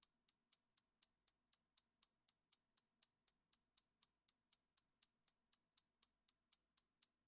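Clock-style ticking sound effect, short sharp high ticks about four a second, counting down the time to answer.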